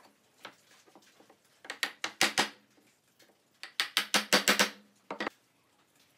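Pine stool parts knocking against each other and the workbench as the legs are fitted into the frame joints. There are groups of sharp wooden knocks, a few about two seconds in and a quicker run of them around four seconds.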